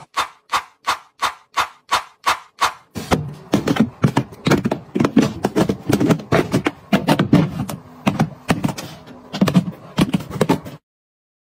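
Close-up handling sounds from items being arranged: a quick, even series of light plops about two or three a second, then a denser, irregular clatter of taps and knocks that cuts off suddenly near the end.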